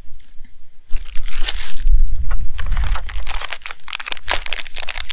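Plastic food bags crinkling as they are picked up and handled: a thin tortilla bag and a pouch of shredded cheese. The crackling starts about a second in and carries on in a dense run of small crinkles.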